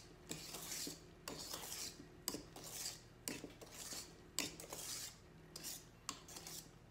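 Wire whisk beating a thick creamy mixture in a stainless steel mixing bowl by hand, its wires scraping and clinking against the metal in quick strokes, about two a second.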